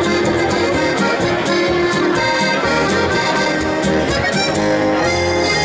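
Accordion playing lively traditional folk music with a steady beat.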